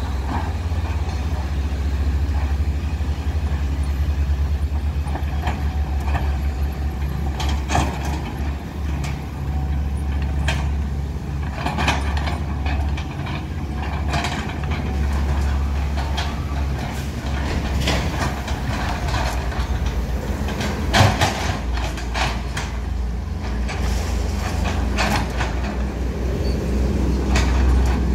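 Hydraulic excavator's diesel engine running steadily under load as it swings and digs in a muddy trench, with scattered clanks and scrapes, the loudest about three-quarters of the way through.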